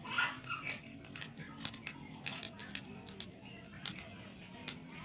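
Small wood fire crackling with irregular sharp snaps and pops as a plucked duck is singed in the flames.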